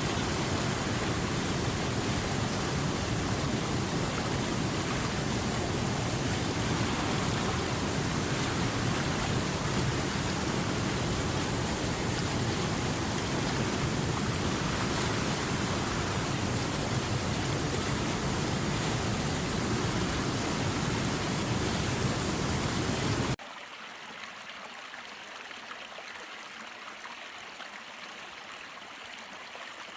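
Steady rushing water, full and heavy, that cuts off suddenly about 23 seconds in to a quieter, thinner sound of a trickling stream.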